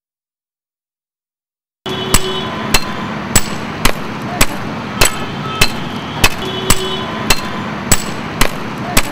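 A hammer striking stone in a steady rhythm, about thirteen blows roughly every 0.6 s, over a constant background noise; it starts abruptly about two seconds in.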